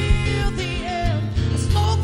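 Live music: a woman's amplified singing voice over a strummed acoustic guitar, a rock song played as an acoustic duo.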